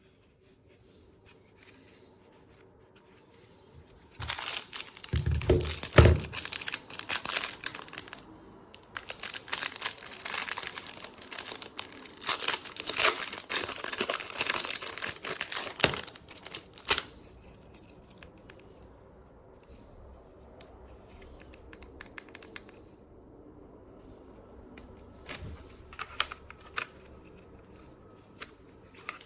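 Crinkling and rustling handling noise with many small clicks, loudest for about twelve seconds starting near the four-second mark, then fading to scattered light clicks and rustles.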